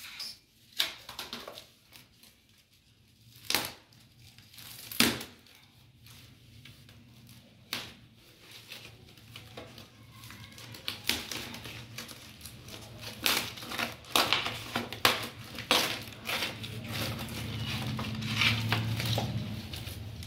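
Cardboard packaging on a reel of kite string being torn and crumpled by hand. A few sharp knocks come in the first seconds, and denser crinkling and tearing follow in the second half.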